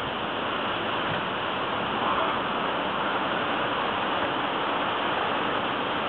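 Storm-force wind rushing through trees, mixed with rain: a steady, unbroken rushing noise.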